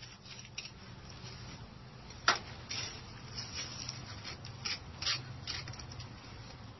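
A small hand tool scraping against a stone veneer wall in short, irregular scratchy strokes, with one sharp click about two seconds in. A low steady hum runs underneath.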